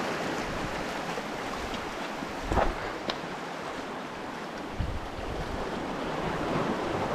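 Sea surf washing and breaking against rocks, a steady rushing wash. A short thump about two and a half seconds in, the loudest moment, with a smaller one near five seconds.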